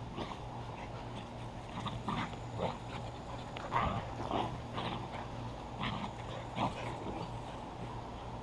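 Dogs playing over a ball, making short whimpers and yips scattered through, over a steady low hum.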